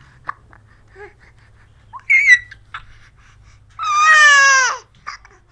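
A 13-week-old baby squealing: a short high squeak about two seconds in, then a louder squeal lasting about a second, sliding slightly down in pitch, near the end.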